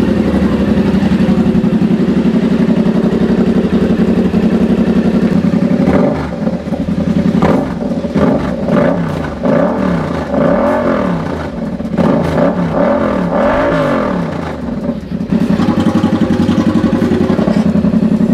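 Yamaha MT-07's CP2 689 cc parallel-twin idling through an Orion full-system exhaust with a sample muffler held on by hand. About six seconds in it is blipped up and down repeatedly for several seconds, then settles back to a steady idle.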